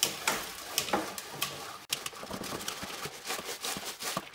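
Pea gravel rattling and clattering irregularly inside a 1968 Honda CL90's fuel tank as the tank is shaken and tipped by hand, the stones scouring loose the rust left after a vinegar soak.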